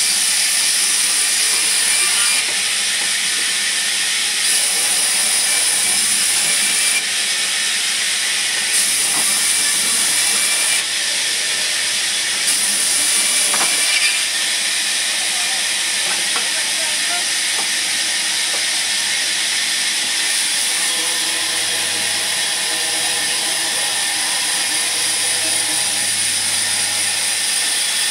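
Large sawmill band saw running and cutting through a log: a loud, steady hiss with a high edge that comes and goes in stretches of about two seconds during the first half, then holds steadier.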